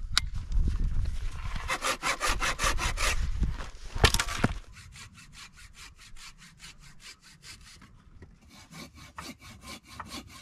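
Hand saw working with quick, even back-and-forth strokes, about six a second. Loud for the first four seconds or so, then fainter for the rest.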